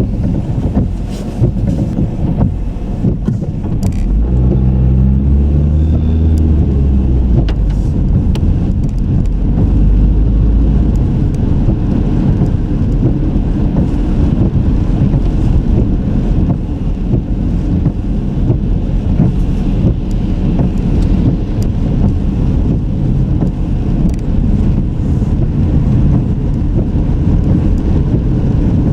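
Car driving on a city street: a steady low rumble of road and engine noise. About four seconds in, an engine note climbs in pitch for a few seconds as it accelerates.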